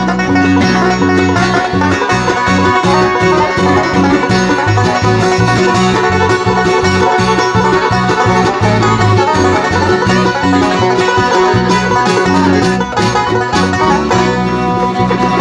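Live bluegrass band playing an instrumental, led by a five-string banjo picking rolls, with fiddle, mandolin, acoustic guitar and bass.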